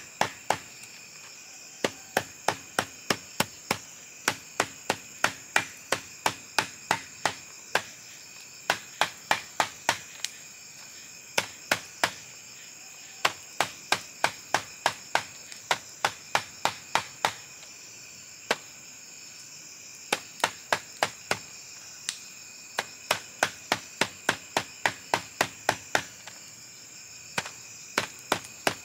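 Large knife chopping raw pork on a wooden block, sharp chops about two a second in runs broken by short pauses, over a steady high insect drone.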